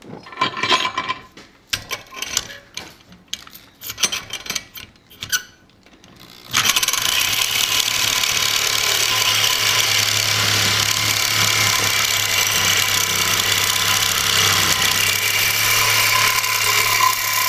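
Metal clicks and clinks of a reciprocating saw and its blade being handled. About six seconds in, the saw starts and runs steadily, cutting through hardened tool steel (54 to 58 Rockwell) with a carbide-tipped metal-cutting blade, with a steady hum and a thin high ring.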